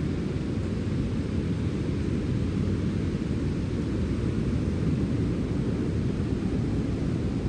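Steady sea wind: a constant low rumble with a fainter hiss above it, even throughout with no gusts or breaks.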